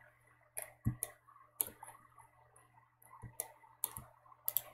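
Scattered sharp clicks of a computer mouse and keyboard, about eight spread irregularly, over a faint low hum.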